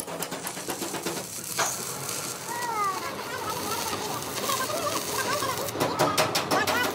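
Stick welding on the steel of an excavator bucket: the arc crackles and hisses steadily while a bird chirps in short rising and falling calls. Near the end, a fast run of regular sharp clicks.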